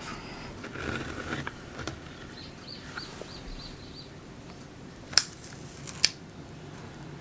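Faint handling noise and a short run of faint high chirps, then two sharp clicks about a second apart near the end.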